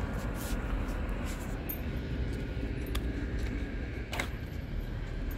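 Outdoor urban background: a steady low rumble of distant traffic, with a couple of short faint clicks.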